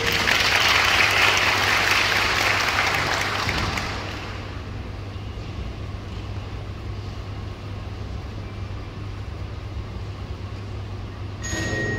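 Audience applause that dies away over the first four seconds, leaving a quiet hall with a steady low hum. Just before the end a concert band starts playing its first notes.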